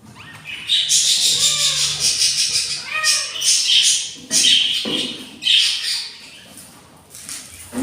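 Budgerigars calling at the nest: long raspy, hissing calls in loud bursts, broken by a few short rising-and-falling chirps.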